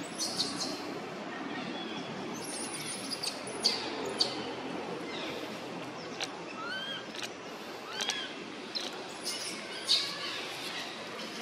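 Forest ambience: a steady hiss of background noise with a run of short chirps that rise and fall in pitch, coming every second or so in the second half, and scattered sharp clicks.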